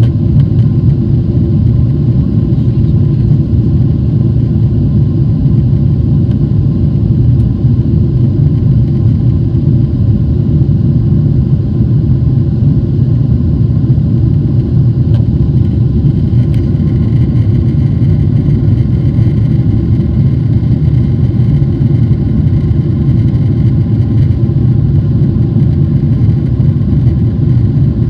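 Steady cabin noise inside a Boeing 777-300ER climbing out after takeoff: its GE90 engines and the airflow over the fuselage heard as a loud, even, deep rumble.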